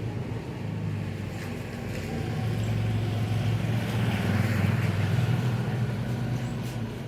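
A steady low mechanical hum that grows louder through the middle and eases off near the end, with a few faint clicks.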